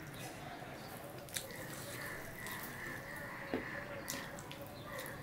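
Fingers mixing rice with curry on a steel plate: soft wet squishing with a few sharp clicks, the loudest a little over a second in and about three and a half seconds in, over a faint steady hum.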